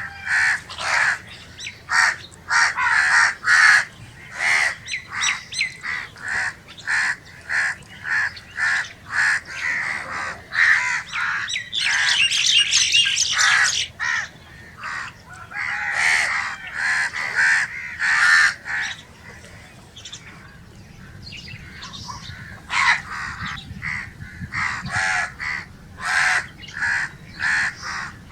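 Crows cawing over and over in short, repeated calls, with a harsher, noisier stretch about twelve seconds in and a brief lull later on.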